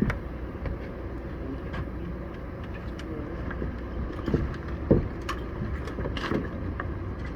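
Construction-site background on a wall-framing job: a steady low rumble with a few scattered knocks, the loudest about five seconds in.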